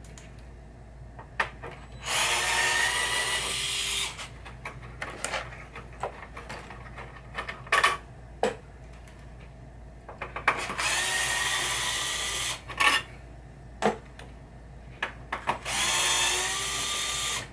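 DeWalt cordless electric screwdriver running in three bursts of about two seconds each, unscrewing screws from a pinball playfield, with short clicks and knocks of parts being handled in between.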